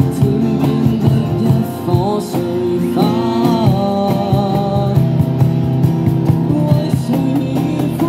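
A male vocalist sings a melody into a handheld microphone, amplified, with guitar accompaniment.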